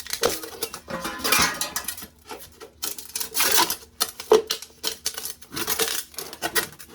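Rapid, irregular metallic clicking and clattering of hand tools and parts being worked during a water heater installation.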